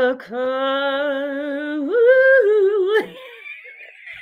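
A woman's voice singing a long, wavering note with vibrato, briefly breaking at the start, jumping up in pitch about two seconds in and sliding back down before cutting off. It is followed by a quieter, breathy sound.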